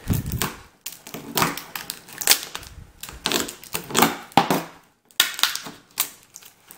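Clear packing tape and a tape-wrapped mailing envelope crackling and crinkling as they are slit and peeled open, in a quick irregular string of snaps and rustles.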